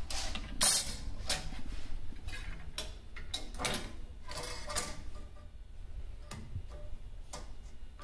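Thin stainless steel shim strip being fitted against aluminum rails, metal-on-metal: irregular short clicks and scrapes, thinning out after about five seconds.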